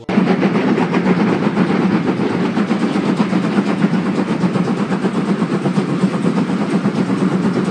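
Steam locomotives working hard, their exhaust chuffing in a fast, loud, continuous beat that cuts in and cuts off abruptly.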